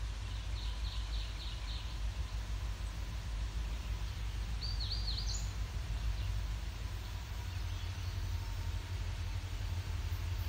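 Birds chirping over a steady low rumble: a quick run of about five chirps half a second in, and a few looping notes about halfway through.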